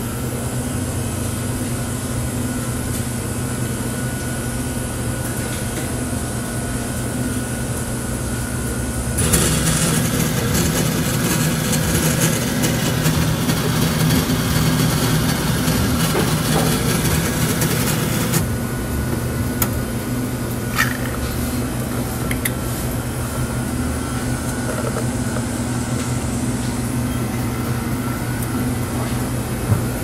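Self-serve bean-to-cup coffee machine running with a steady hum. About nine seconds in, a louder whirring starts, the grinder milling beans, and it stops about nine seconds later. The machine then goes back to the quieter hum, with a few small clicks, as coffee runs into the paper cup.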